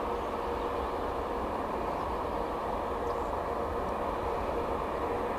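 Airbus A380's four turbofan engines on landing approach: a steady rushing drone over a low rumble, with a faint held tone.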